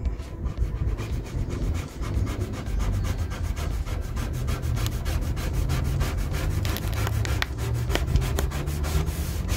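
Rapid, even back-and-forth rubbing on the transfer tape of a vinyl side-stripe decal, pressing it down onto the car's door so no air bubbles are left behind it.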